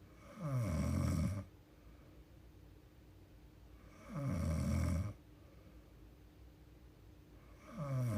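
A young woman snoring in her sleep: two full snores about three and a half seconds apart, each about a second long and opening with a falling pitch, and a third beginning near the end.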